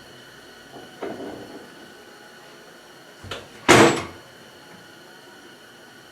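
A light knock, then a loud clunk of hard objects knocked together with a brief ring, about halfway through.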